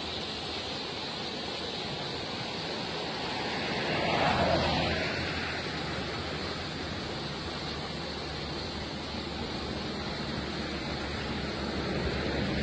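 Steady rushing of a fast, muddy floodwater river pouring around rocks, swelling briefly about four seconds in.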